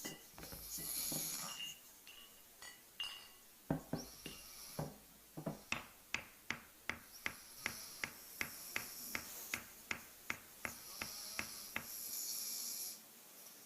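Breathy hissing swells rising and falling, and from about four seconds in a quick run of sharp, evenly spaced knocks, about three a second, which stop near the end.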